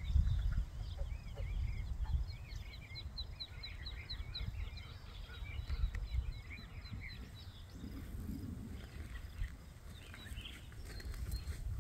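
Birds chirping and warbling in quick repeated calls, over an uneven low rumble of wind on the microphone.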